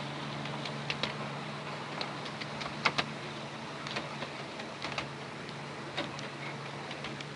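A 7¼ inch gauge miniature railway train running along its track: the locomotive gives a steady low hum, under irregular clicks and knocks of the wheels over rail joints and points. Two sharper knocks come about three seconds in.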